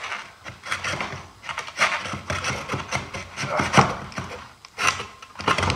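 RedMax stick edger's drive-shaft tube being twisted and tugged out of the engine's clutch housing, with irregular scraping, creaking and rubbing. A sharp knock comes about two-thirds of the way through.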